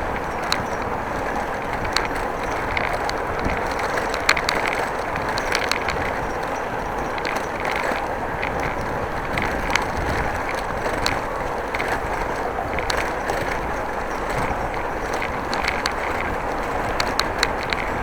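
Bicycle being ridden: steady rolling and wind noise with irregular sharp ticks and rattles scattered through it.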